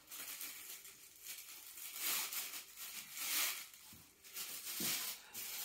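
Clear plastic film wrapping crinkling and rustling in several separate bursts as it is handled and pulled off a large flat panel.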